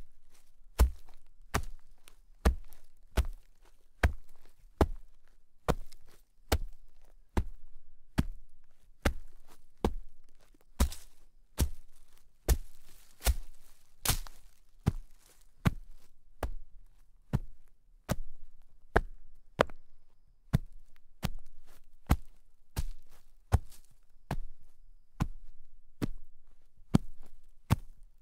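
Footsteps walking through shallow snow: a steady series of short crunches, about two steps a second.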